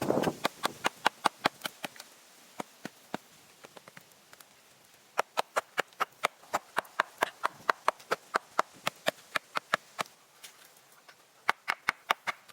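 A run of sharp wooden knocks and clicks, about two to three a second, with a louder burst at the start and brief pauses between runs: hand-tool work on wood.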